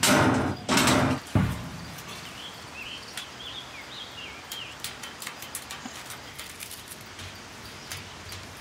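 Stainless-steel ash drawer of a wood-fired hot tub stove sliding in with a metal scrape, closing with a clank about a second and a half in. Birds chirp in the background, with faint scattered clicks.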